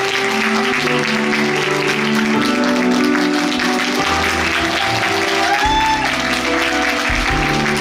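Curtain-call music from a stage musical, a melody with a moving bass line, over an audience applauding throughout.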